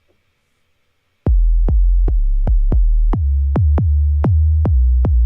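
Electronic drum kit in Logic Pro, played from the controller's drum pads: after a few faint taps, a deep kick with a long low bass tail starts about a second in and is hit over and over, a few times a second, the hits coming faster near the end.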